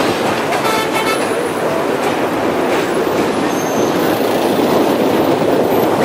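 Passenger train rolling slowly over a steel sea bridge, its running noise mixed with a steady rush of wind on the microphone. There is a short tonal sound about a second in.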